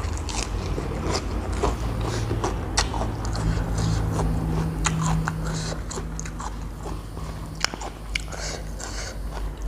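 Close-up chewing and biting, with many sharp crunches, as someone eats a mouthful of spicy tam sua salad with fermented shrimp and pickled field crab. A low steady hum runs underneath through most of it.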